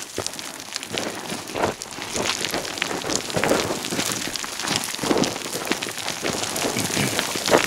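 Hurried footsteps crunching and sliding down a steep slope of loose gravel and scree, with a louder crunch about once a second.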